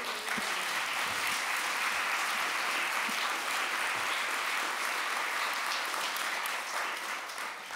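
A large seated audience applauding, the clapping steady and then dying away near the end.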